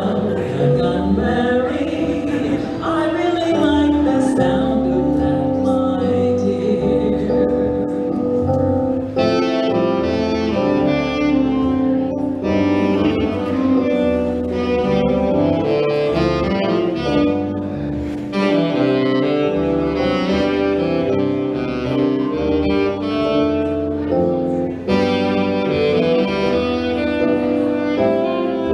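Instrumental break of a song: a saxophone plays the lead melody over bass and accompaniment, with the lead growing fuller about a third of the way in.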